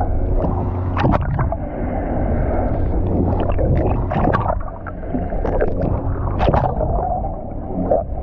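A boat's engine running steadily at idle, with water sloshing and irregular knocks and splashes over it. The loudest knocks come about a second in and again past the six-second mark.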